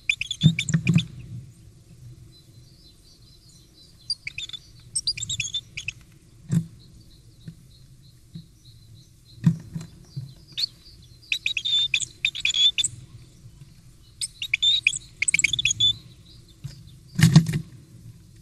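Great tit calling in short clusters of high chirps, four times, with sharp knocks as it grips and taps at the wooden nest box's entrance hole; the loudest knocks come about half a second in and near the end.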